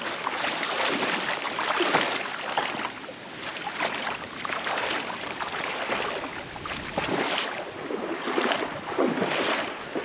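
Legs wading through a flowing creek, the water sloshing and splashing in uneven surges every second or two.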